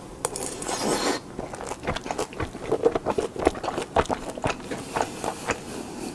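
Biting into a pan-fried spicy hotteok dumpling and then chewing it with the mouth closed, close to the microphone. A thick burst of bite noise in the first second gives way to a run of short, wet clicking and crunching chews.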